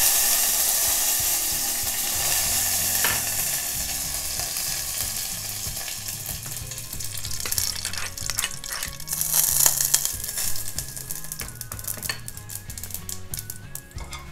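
Curry leaves and mustard seeds sizzling in hot oil in a stainless steel saucepan. The hiss is loudest at first and fades steadily, giving way to scattered pops and crackles. The spitting comes from water left on the curry leaves.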